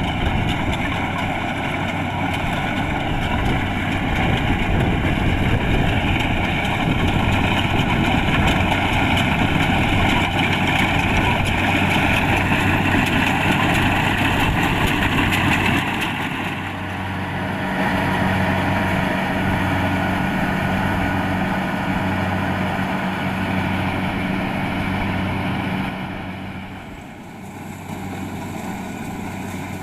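Kubota DC-70 Plus combine harvester running under load, with a steady engine hum. About halfway through it becomes quieter and smoother, and it dips briefly near the end.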